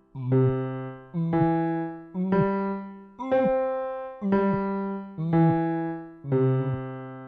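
Piano playing seven chords about one a second, each struck and left to ring out, stepping up in pitch and then back down: the accompaniment pattern of a vocal warm-up exercise.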